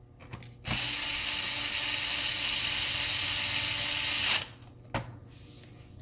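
Small cordless electric screwdriver running steadily for about three and a half seconds as it drives a screw into a plastic laptop bottom cover, then stopping abruptly. A single sharp click follows about half a second later.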